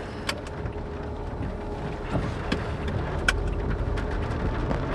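Car driving, with a steady low road and engine rumble and a few light clicks and knocks.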